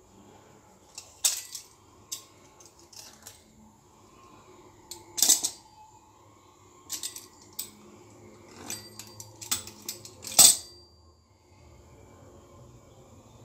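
Small metal kitchen utensils clinking and knocking against a granite countertop as they are handled, picked up and set down. A series of sharp knocks, the loudest about five and ten seconds in.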